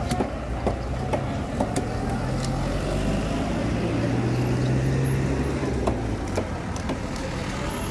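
A motor vehicle's engine running close by, a low hum that swells in the middle and then eases off. Over it come a few sharp knocks of a cleaver chopping red snapper on a wooden board.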